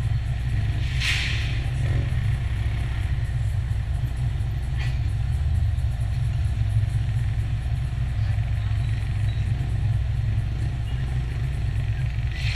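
Road traffic heard from a stopped car: a steady low rumble, with motorcycles and motorcycle tricycles passing. A brief hiss stands out about a second in, and a fainter one near the middle.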